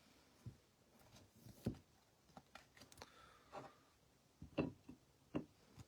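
Faint handling of trading cards: scattered light clicks and taps as cards are shuffled, slid and set down on a table, about half a dozen over a few seconds.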